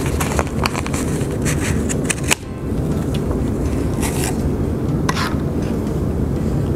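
Scissors snipping through a bundle of acrylic yarn wound around a piece of cardboard, several quick cuts in the first two seconds or so, then a few soft rustles as the cut strands are handled. A steady low hum runs underneath.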